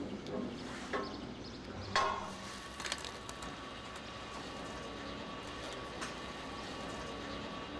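Posch PackFix firewood packing machine starting up and running, wrapping stretch film around the bin of firewood. A few knocks come in the first three seconds, then a steady whine from about two seconds in.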